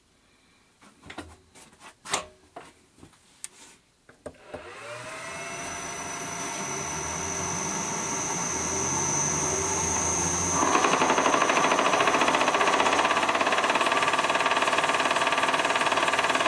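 Metal lathe being set and started: a few clunks of its levers, then the motor starts and runs up in pitch with a high thin whine. About ten seconds in the spindle drive is engaged, the four-jaw chuck spins up and the machine noise suddenly gets louder and fuller.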